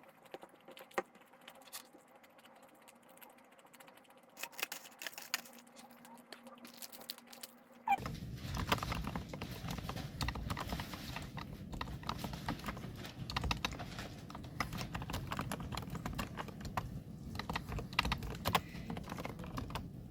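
Typing on a computer keyboard: irregular key clicks. About eight seconds in, a steady low background hum comes in beneath them.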